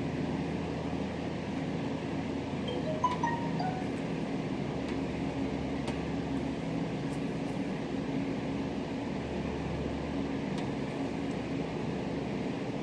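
Steady low hum of air conditioning. About three seconds in, a brief cluster of light metallic clinks rings out as the blades of a feeler gauge set knock together in hand.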